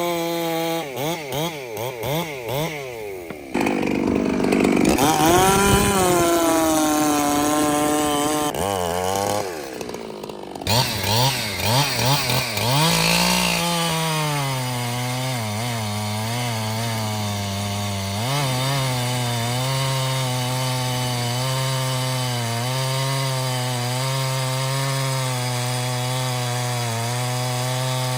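Chainsaw engine revved in quick throttle blips, then running loud and cutting wood; for the last half it holds a steady, lower pitch with a slight wobble, the engine pulled down under load in the cut.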